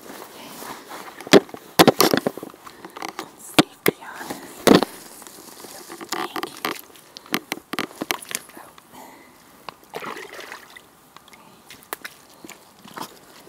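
Rubber boots sloshing and splashing through muddy water in irregular steps, with a few louder splashes in the first five seconds.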